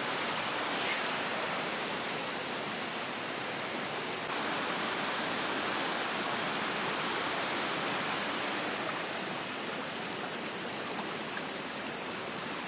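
Shallow mountain river running over stones and boulders: a steady rushing of water. A steady high insect drone sits above it and grows louder about two-thirds of the way through.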